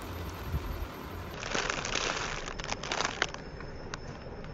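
Crackling, crinkling noise with sharp clicks, strongest for about two seconds starting a little over a second in.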